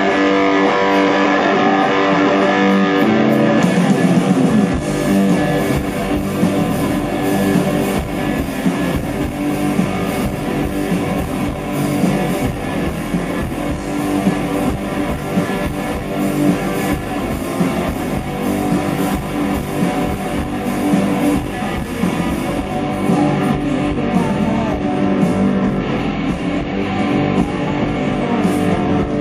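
Live rock band playing: distorted electric guitars and bass guitar through stage amplifiers, with drums and cymbal hits coming in about four seconds in.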